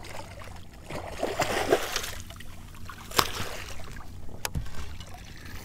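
Water splashing and sloshing at the side of a small boat as a hooked redfish is brought in, with two sharp knocks in the second half.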